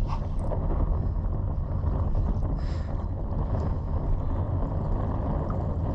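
Wind buffeting the microphone: a steady low rumble, with a short hiss about halfway through.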